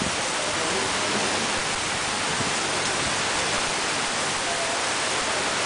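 Heavy rain pouring steadily onto wet paving and foliage, a dense, even hiss with no letup.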